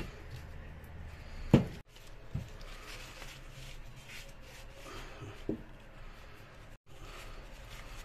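Paper towel rubbing on PVC pipe fittings as they are wiped clean, with the rustle and clack of the plastic fittings being handled. One sharp knock comes about a second and a half in, with lighter knocks later.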